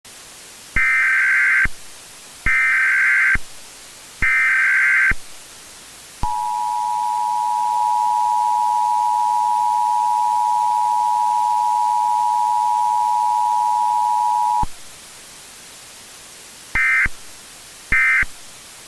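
Emergency Alert System tones over a steady hiss: three SAME header data bursts about a second each, then the two-tone attention signal held steady for about eight seconds. Near the end come two short data bursts.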